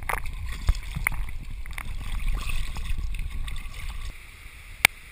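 Water splashing and sloshing around a person wading or swimming through a river pool, with a low rumble on the microphone that drops away about four seconds in. A single sharp click comes near the end.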